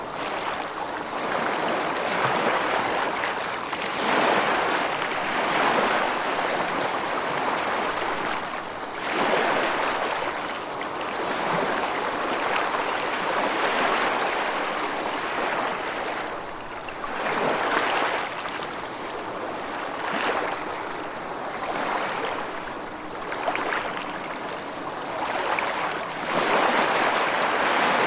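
Steady rushing water, a dense hiss that swells and eases in surges every few seconds.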